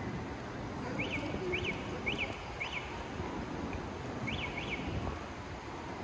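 A bird giving short, high chirps, each rising and falling quickly in pitch: four in a row starting about a second in, then two more near the end. Under them runs a low rumble of city street traffic.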